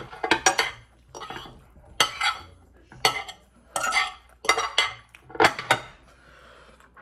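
Cutlery scraping and clinking against a dish of poutine while it is being eaten, in a series of short sharp clinks and scrapes about one or two a second.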